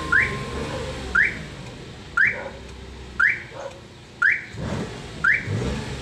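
Car alarm sounding: a short rising chirp repeating about once a second.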